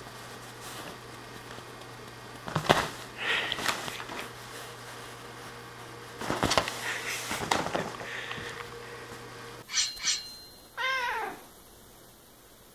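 Thumps and rustling as a cat pounces on the couch, the loudest a sharp knock a few seconds in. Near the end comes one meow from a domestic cat, falling in pitch.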